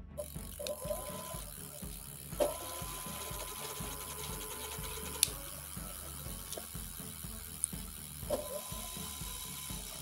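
E-bike hub motor spinning under throttle on a controller test: a steady hum and whine, with a few sharp clicks from handling the controller wiring.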